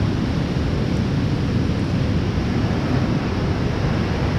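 Steady rush of moving water where a stream pours into the lake, a constant, deep noise that does not let up.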